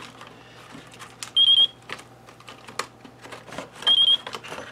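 FrSky Taranis QX7 radio chirping in bind mode: a quick three-note electronic beep, twice, about two and a half seconds apart. Light clicks and knocks in between.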